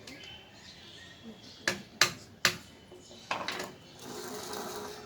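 UPVC pipes and plastic fittings knocking and clicking as they are handled and pushed together: three sharp knocks about two seconds in, a quick run of clicks after three seconds, then a scraping rustle near the end.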